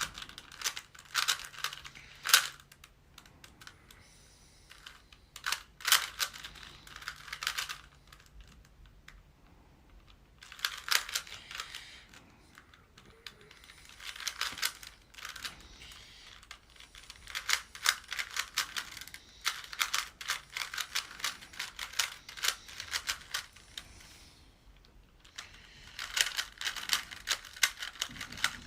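A Rubik's Cube being turned fast during a timed solve, its plastic layers clicking in quick rattling runs of a second or two, with short pauses between the runs.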